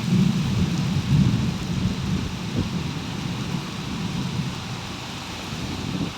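Thunderstorm: a low rolling rumble of thunder that is loudest at first and slowly fades, over a steady hiss of rain. The sound drops off suddenly at the very end.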